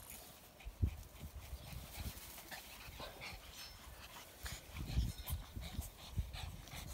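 Shih Tzu puppies play-wrestling on grass: soft panting and scuffling, with a few brief high whimpers and a couple of dull thumps.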